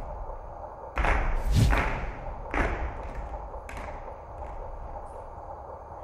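Dancers' bodies thudding onto a stage floor: heavy thumps about a second in and a second and a half in, the second the deepest, then a few lighter knocks.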